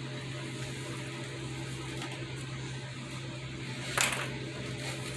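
Steady low mechanical hum in a small room, with one brief sharp rustle of packaging about four seconds in as the kit is unboxed.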